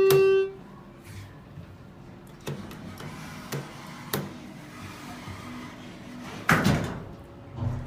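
Schindler traction elevator's two-note chime finishing on its low note, then a few sharp clicks and, about six and a half seconds in, a louder rattling thud of the elevator door equipment, over faint background music.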